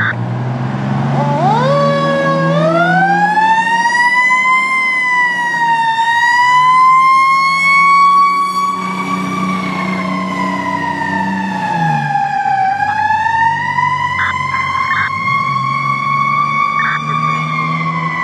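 Fire truck siren winding up about a second in, then wailing with a slow, uneven rise and fall in pitch, over the low rumble of the apparatus's engine as it pulls out.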